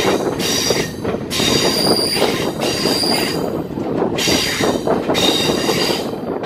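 Passenger train coaches running round a curve: the steel wheels' flanges squeal in repeated high-pitched bursts over a steady rumble of wheels on the rails, heard close from a coach doorway.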